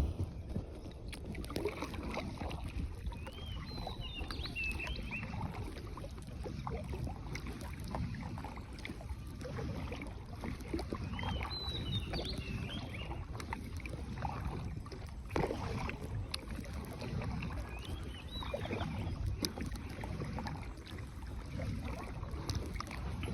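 A small boat being paddled, with irregular water and paddle noise throughout. Short high chirps come three times, several seconds apart.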